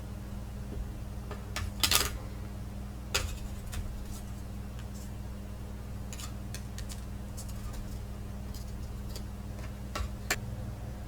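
A metal tool clinks and scrapes against a small pan while dross is skimmed off molten pewter. The clicks are scattered, with the loudest cluster about two seconds in and another near the end, over a steady low hum.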